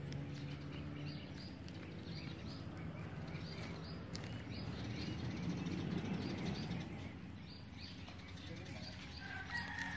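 Outdoor ambience of small birds chirping over and over, with a steady high-pitched insect drone behind them. A low rustling swells around the middle.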